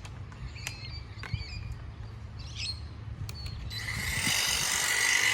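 Birds chirping briefly over a low background rumble, then about four seconds in a steady mechanical whirring with a high held tone starts up and grows louder.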